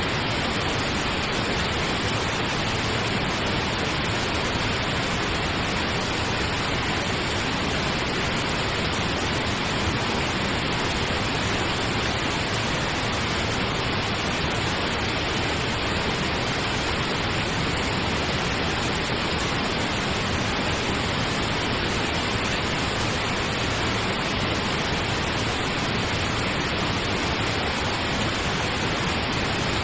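Steady pink noise: an even, unchanging hiss spread across all pitches, played as a sleep aid.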